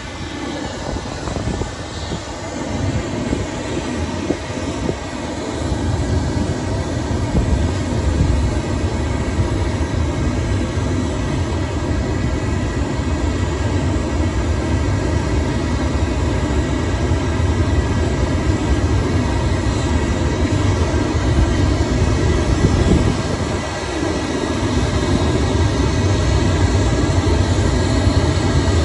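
Pink noise played loud through a loudspeaker as a sound-insulation test signal: a steady, even rush that builds over the first several seconds, dips briefly about five seconds before the end, then holds.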